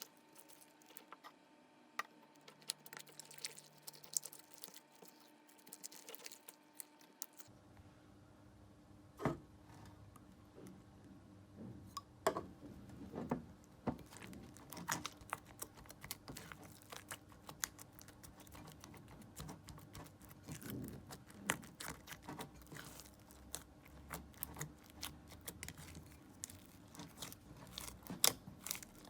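Clear slime being handled: a dense run of small, irregular sticky clicks and crackles, a few louder pops among them.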